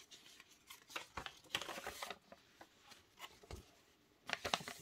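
Paper instruction leaflet rustling and crinkling as it is handled and unfolded, loudest about a second and a half in and again near the end.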